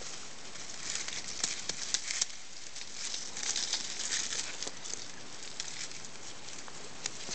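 Dry fallen leaves on grass crackling and rustling as puppies scamper and nose through them, an uneven run of small crunches that grows busier about halfway through.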